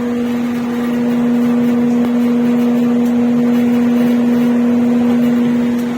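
Carrier 8-ton ductable AC unit running with a loud, steady humming tone over its airflow noise. This is the abnormal noise the unit makes only when it is fully closed up with its underside water tray fitted; it stops when the tray is taken off.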